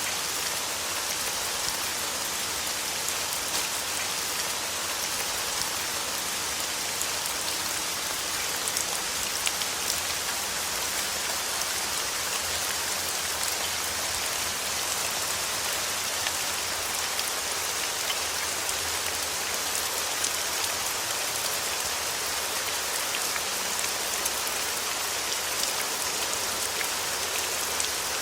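Steady rain falling: a dense, even hiss with scattered small drop ticks, unchanging throughout.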